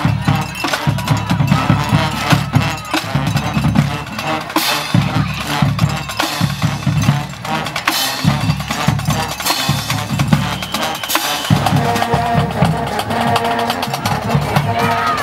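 Percussion-heavy music with a steady, repeating drum beat.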